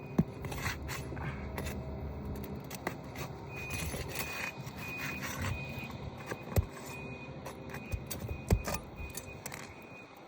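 Steel pry bar and roofing hammer clinking, scraping and knocking on asphalt shingles and roofing nails as the nails are pried out, with a few sharper knocks among the lighter clinks.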